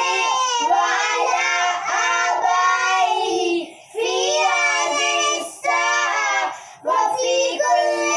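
Children singing a prayer song together, long held notes in phrases, with short pauses for breath about four and seven seconds in.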